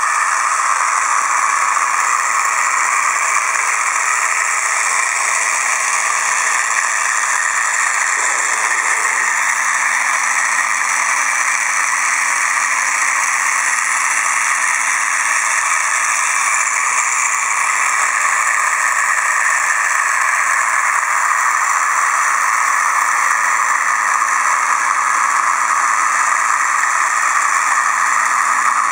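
Gakken Otona no Kagaku tabletop vacuum cleaner robot kit running: its single small electric motor and suction fan whir steadily. The one motor drives both the wheels and the vacuum through a gear train, with no electronic control.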